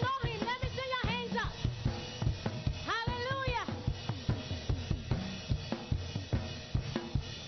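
Live praise-and-worship band music driven by a steady drum-kit beat of kick, snare, hi-hat and cymbals, with a melodic line that bends up and down in pitch near the start and again about three seconds in.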